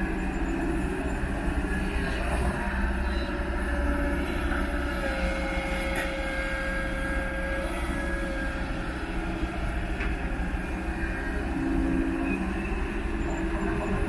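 Kobelco SK200 hydraulic excavator's diesel engine running steadily under load as it digs soil and swings to load a dump truck.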